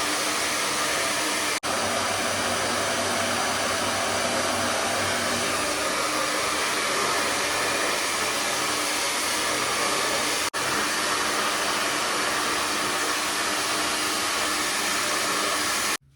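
Hair dryer blowing steadily, with two momentary breaks, and cutting off suddenly near the end.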